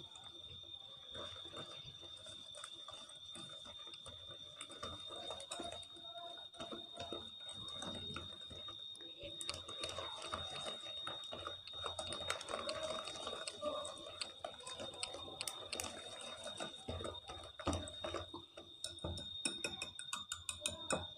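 Wire hand whisk stirring a thick butter-and-flour dough in a glass bowl, its wires clicking and scraping irregularly against the glass, with a quicker run of clicks near the end. A faint steady high-pitched whine runs underneath.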